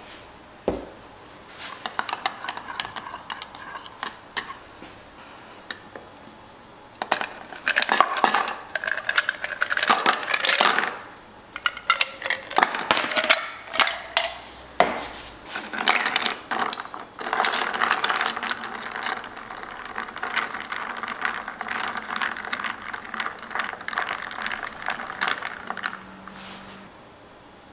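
Ice cubes clattering into a glass of iced coffee, then a long metal bar spoon stirring, ice and spoon clinking against the glass. The stirring is a steady run of clinks and scraping that stops near the end.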